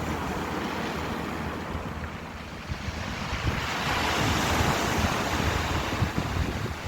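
Ocean waves washing ashore, one wave swelling to a louder surge about halfway through and then easing back.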